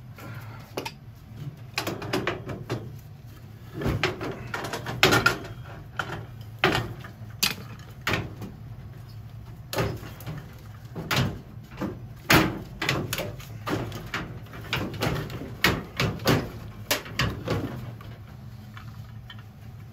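Irregular metal clicks, knocks and clunks as a gas boiler's old gas valve and its fittings are worked loose and handled, over a low steady hum.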